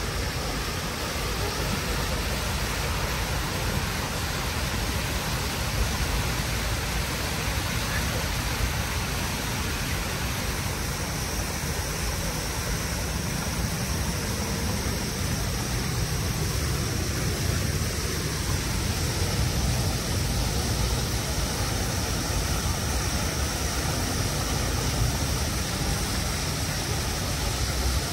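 Steady rush of splashing water from a large public fountain, over a low rumble of city traffic.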